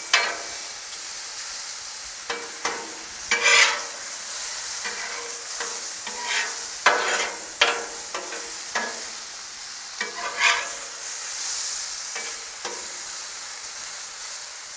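Sliced mushrooms frying on a hot flat-top griddle, a steady sizzle, with about a dozen sharp scrapes and clacks of a utensil as they are stirred on the griddle surface.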